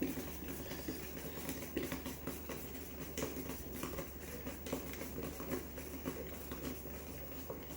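Faint scattered clicks and scrapes of a table leg being screwed into the tabletop by hand, over a steady low hum.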